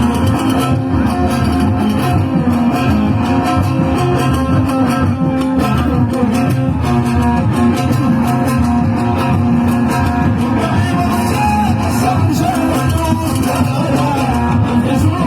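Live band music led by plucked strings over a steady beat, with singing in places.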